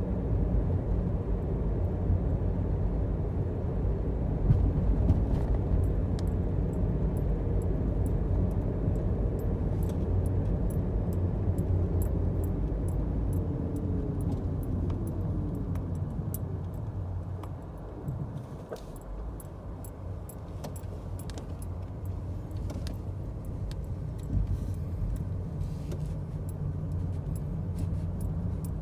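Motor vehicle running with a steady low rumble. Midway a tone slides down in pitch, after which the rumble drops a little, and light ticks and rattles come and go.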